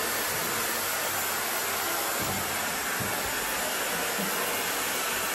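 Dyson hair dryer blowing air steadily while drying wet hair.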